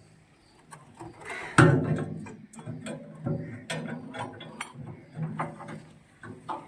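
Metal parts of a mini construction lift being handled: scattered clanks and knocks, one loud bang about one and a half seconds in, over a low hum that comes and goes.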